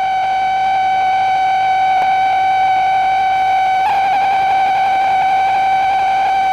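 A single sustained high tone, buzzy with overtones, held steady as part of a 7-inch vinyl record track, with a brief wobble in pitch about four seconds in.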